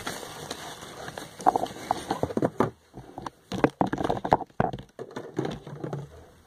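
Plastic packaging crackling and small cosmetic containers clicking and knocking as they are handled, in an irregular run of sharp clicks that starts about a second and a half in.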